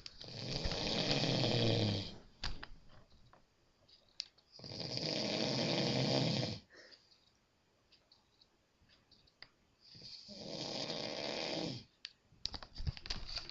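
A sleeping man snoring: three long snores of about two seconds each, some four to five seconds apart.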